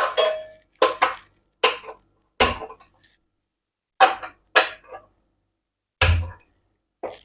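A series of about eight short metallic clinks and knocks at uneven intervals, each ringing briefly, as metal parts of a gas hob are handled.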